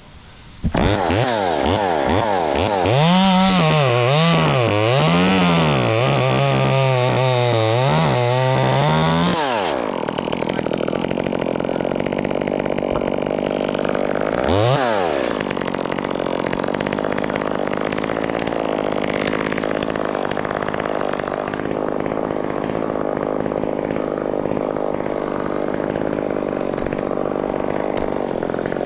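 Chainsaw running hard from about a second in, its engine pitch rising and falling under load while it cuts through a beech stem, then dropping to a steadier low running for the rest, with one short rev about halfway through.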